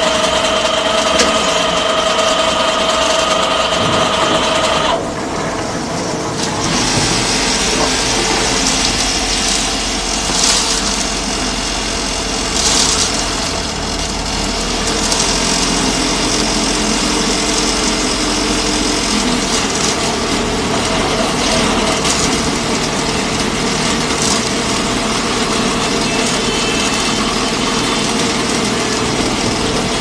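Aimix concrete mixer pump running loudly, its drum turning while the skip hopper is hoisted and tips a load of gravel into it. A steady whine stops about five seconds in, and a rougher, noisier machine sound follows.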